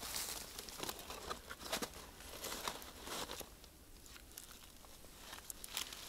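Dry birch bark being torn and crumpled by hand, gathered as fire tinder: irregular rustling and crackling with sharp little clicks, busiest in the first half.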